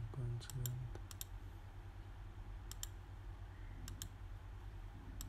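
Computer mouse clicking: five or so sharp clicks, mostly in quick pairs, spread across a few seconds over a low steady hum.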